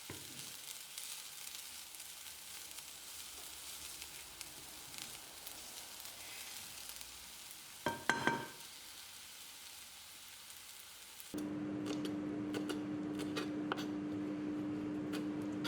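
Sliced bay bolete mushrooms frying in a pan: a faint, steady sizzle with tiny crackles, and a brief ringing sound about eight seconds in. About eleven seconds in, the sound changes abruptly to a steady low hum with light ticking.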